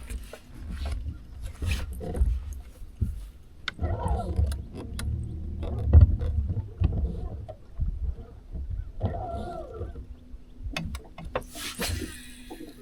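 Irregular knocks, thumps and clicks of handling on a boat deck, the loudest thump about halfway through. A short rush of noise comes near the end, and a steady low hum starts in the last few seconds.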